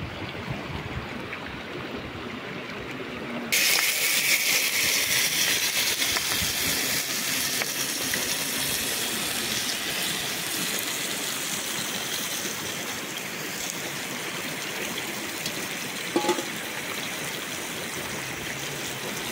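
River water rushing and flowing steadily. About three and a half seconds in, the rushing suddenly becomes louder and brighter, then holds steady, with one brief small sound about three seconds before the end.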